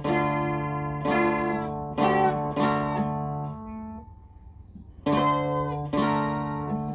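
Fretted box dulcimer with a doubled melody string, tuned DAAA and played through an amplifier: a hymn melody strummed over a steady drone, about one strum a second. The playing drops away for about a second and a half past the middle, then resumes.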